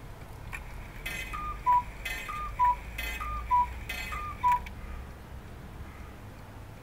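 Swiss Koo cuckoo clock calling "cuck-oo" four times, about once a second, each call a higher note falling to a lower one. A short mechanical rasp comes just before each call, with a faint click at the start and end of the run.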